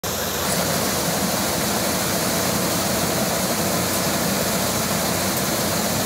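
Shaft-driven corn sheller running while corn ears are fed into its hopper: a loud, steady, even noise that does not let up.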